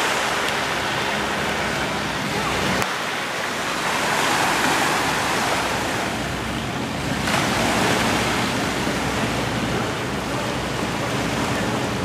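Small waves washing onto a sandy beach, mixed with wind on the microphone, the wash swelling and easing; a low steady hum sits underneath at times.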